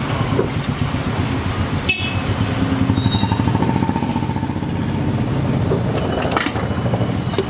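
Roadside motor traffic: a steady low engine rumble from passing vehicles, with a brief high beep about two seconds in and a couple of sharp clicks near the end.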